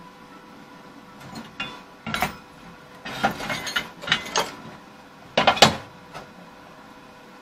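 Metal objects being handled, clinking and clattering in a string of irregular knocks, the loudest about two thirds of the way through.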